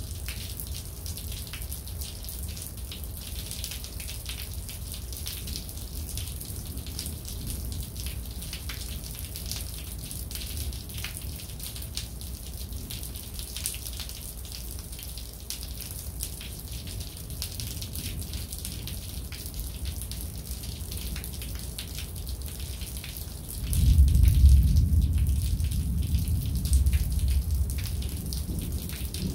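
Rain falling steadily, with single drops ticking close by. Near the end a loud, long, low rumble of thunder swells up suddenly and slowly fades.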